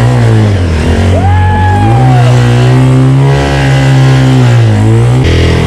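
Honda Titan 150 single-cylinder four-stroke motorcycle engine running under load in second gear, driving a mini speedboat's jet pump. Its note rises and falls with the throttle, dipping about four and a half seconds in and picking up again.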